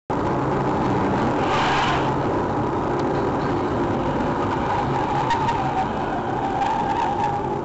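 A car driving: steady engine and tyre noise, with a few faint clicks.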